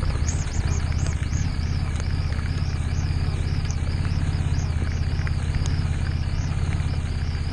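Harley-Davidson Street 750's V-twin engine running steadily at low speed over a wet gravel road, with a wavering high hiss and a few faint ticks.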